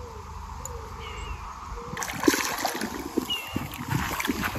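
A hooked mirror carp of over 20 lb splashing and thrashing at the water's surface as it is played in to the landing net. It is quiet at first, and the splashing starts about halfway through, in irregular, louder surges.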